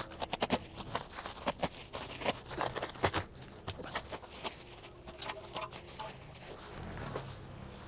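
Plastic bubble wrap crackling and rustling as it is pulled off a ceramic tandoor, with a quick run of sharp crackles over the first few seconds that thins out toward the end.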